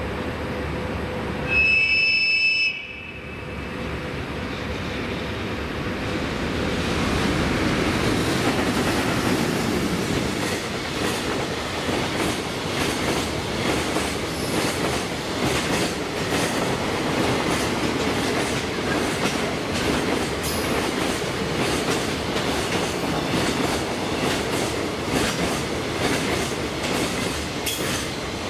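A container freight train, the Seino Kangaroo Liner hauled by an EH500 electric locomotive, running through at speed. A short, high horn blast about two seconds in is followed by a long, steady rush of wagons with wheels clacking over the rail joints.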